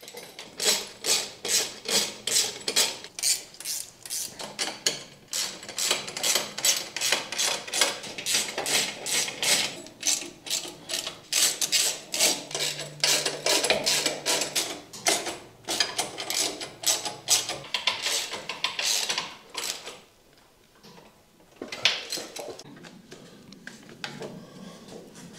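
Socket ratchet wrench clicking in quick, regular strokes, about two to three a second, as bolts are tightened down gradually. The clicking stops for a moment near the end, then a few more strokes follow.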